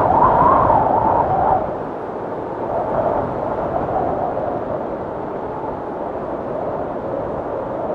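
FPV drone's motors and propellers buzzing in flight, higher in pitch for the first second and a half, then dropping to a lower, steady buzz as the throttle eases.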